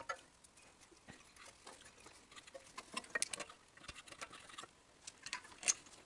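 Faint, scattered clicks and light ticks of small parts being handled as an ignition coil and its wire are fitted to a small engine next to its flywheel.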